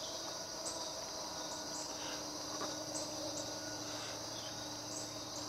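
A steady, high-pitched chorus of insects.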